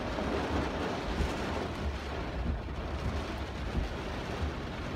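Torrential rain beating on a car's roof and windshield, heard from inside the cabin over a steady low rumble.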